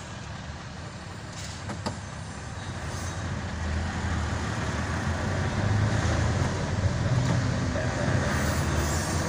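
Engine and road noise of the vehicle being ridden in, heard from inside the cab: a steady low engine drone that grows louder from about three seconds in as it picks up speed along the road.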